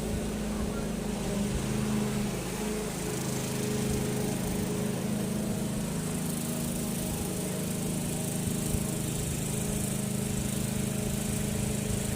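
Walk-behind lawn mower's small engine running steadily while cutting grass.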